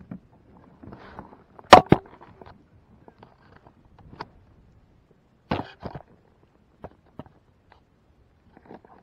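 Sharp knocks and clatter of handling close to the microphone in a plastic fishing kayak: two loud knocks about two seconds in, a quick cluster of them a little past the middle, and lighter scattered taps.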